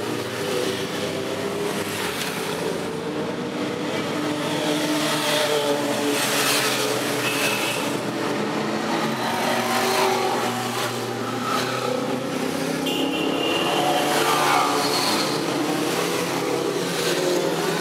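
A line of motorcycles riding past one after another at low speed, the engines running and rising and falling in pitch as each bike passes.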